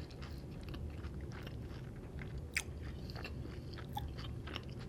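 Close-up chewing of a fried chicken taco in a flour tortilla: a string of small mouth clicks and smacks, with one louder click about two and a half seconds in.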